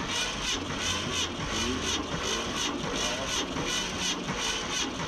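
Starter cranking a Ford 460 big-block V8 with its spark plugs out, turning it over with a steady, even rhythmic chug without firing. This is a wet compression test: oil has been added to the cylinder under test and a gauge is screwed into its plug hole.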